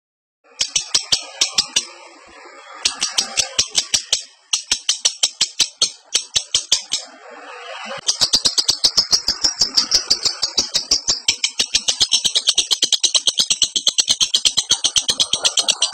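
Lovebird in breeding condition chattering (the Indonesian 'ngekek'): rapid, high, scratchy notes about seven a second. The notes come in several short runs, then in one long unbroken run from about halfway through.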